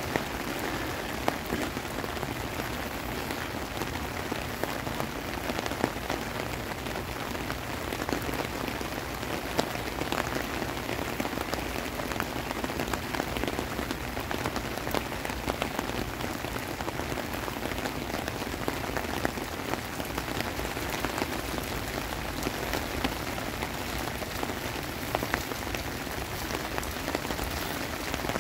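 Heavy rain falling steadily as a dense, even hiss, with many sharp ticks from nearby drops hitting hard surfaces.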